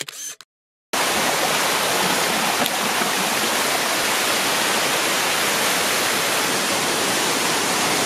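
Water rushing over a cascading waterfall's shallow rock steps: a steady, even rushing that starts about a second in.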